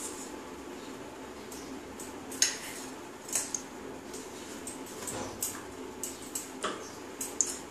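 Cooking oil heating in a non-stick kadai over a gas burner: a steady low hiss with scattered sharp crackles and pops, the loudest about two and a half seconds in, as the oil gets hot enough for tempering.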